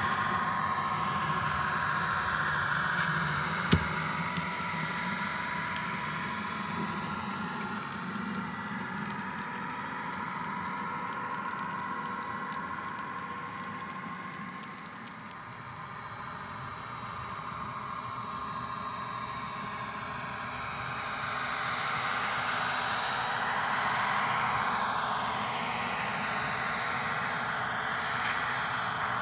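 HO scale model diesel locomotives running past, a steady mechanical whir with a few steady tones. It is louder while the locomotives pass close and quieter while the hopper cars roll by. There is one sharp click about four seconds in.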